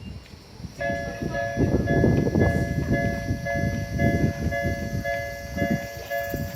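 Japanese railway level-crossing warning bell starting up about a second in and ringing in steady repeated electronic dings, the signal that a train is approaching. Irregular low rumbling runs underneath.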